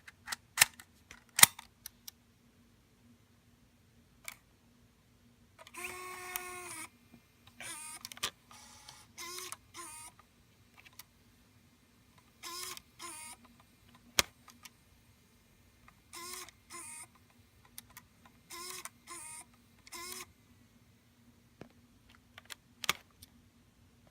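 Panasonic MiniDV camcorder's tape mechanism working to eject the cassette: a string of short, pitched motor whirs, each under a second and the longest about six seconds in, broken up by sharp clicks.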